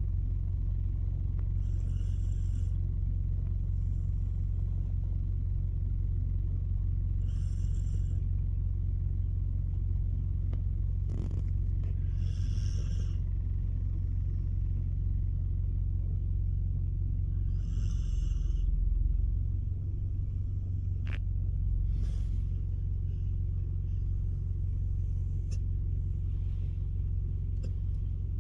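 A steady low rumble, with a soft, breathy hiss about every five seconds: a sleeping husky snoring.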